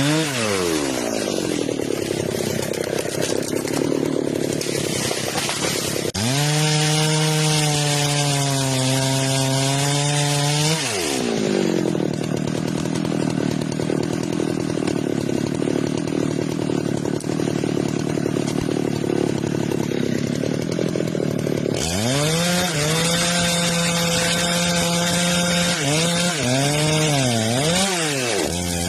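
Chainsaw engine cutting through wood in two long cuts. Between and after the cuts the engine pitch rises and falls as the throttle is worked, with several quick dips near the end.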